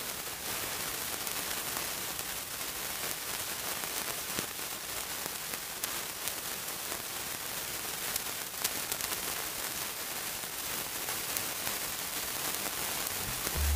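Steady static hiss sprinkled with small crackles and pops, like the surface noise of an old film or record.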